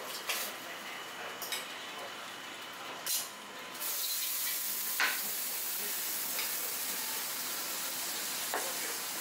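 Steady hissing kitchen noise that grows louder about four seconds in, with a few sharp knocks of a chef's knife on a plastic cutting board as roast pork is sliced.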